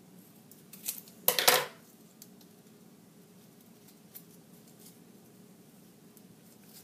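Metal scissors clicking and clattering as they are handled on the table: a couple of sharp clicks about a second in, then a brief loud clatter, followed by a few faint ticks.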